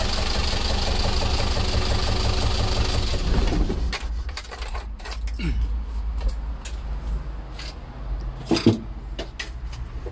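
Toyota 14B four-cylinder diesel running with a loud knock, which the mechanic hears loudest at the intake manifold and air cleaner. The engine is switched off about three and a half seconds in. Scattered clicks and knocks follow, with a sharper knock near the end.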